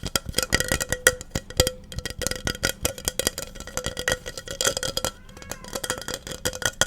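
Fast, irregular tapping on a hard object that rings with a faint steady tone, as in an ASMR tapping trigger.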